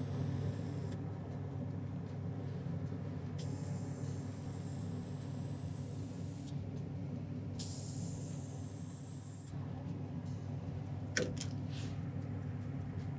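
Aerosol spray can of Aluma-Hyde II firearm paint hissing in three bursts of one to three seconds each, over a steady low hum. A sharp click comes near the end.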